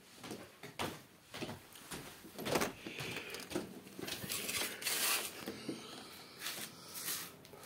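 Scattered footsteps with rustling and rubbing handling noise on a phone microphone, irregular taps about once a second and a short hiss midway.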